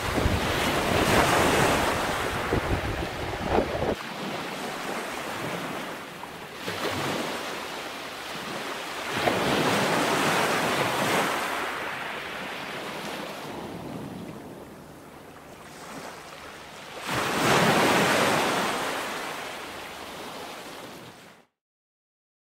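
Ocean surf breaking and washing ashore, swelling and fading in surges every few seconds, with wind buffeting the microphone for the first few seconds. It cuts off suddenly to silence near the end.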